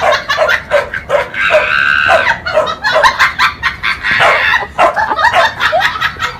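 Dogs barking in quick, short yips, about two or three a second, with a longer drawn-out whine about one and a half seconds in.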